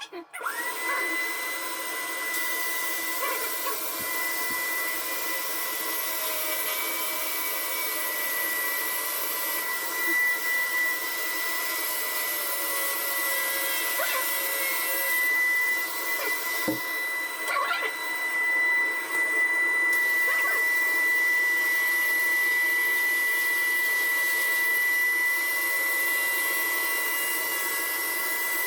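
An electric power tool motor starts up and runs steadily with a high, constant whine.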